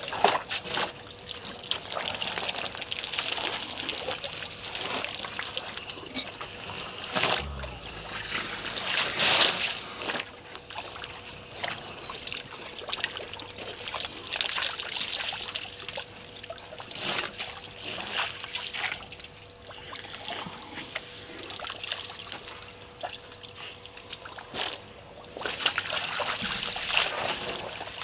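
African bush elephants drinking at a waterhole: water splashing and dribbling from their trunks in short, irregular splashes.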